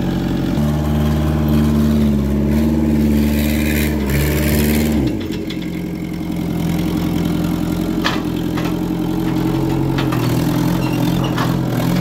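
Kubota V2003 four-cylinder diesel in a New Holland L213 skid steer running under load as the machine climbs onto a trailer. The engine note steps up about half a second in and drops back about five seconds in.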